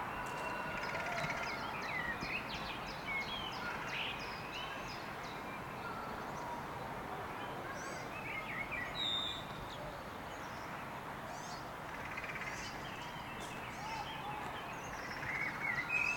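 Outdoor ambience: birds chirping in short calls over a steady background of environmental noise.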